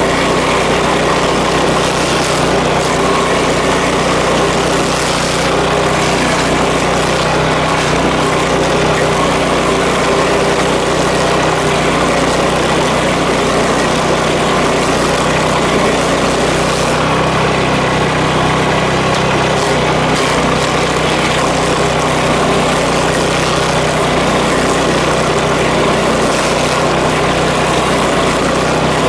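Tractor engine running steadily at a constant speed, driving a Power King PTO stump grinder.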